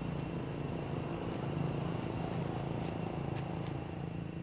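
Steady low engine drone, a little louder in the middle, with a few faint clicks over it.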